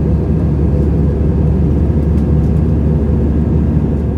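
Steady low rumble of an Airbus A320-200 in flight, heard inside the cabin: engine and airflow noise.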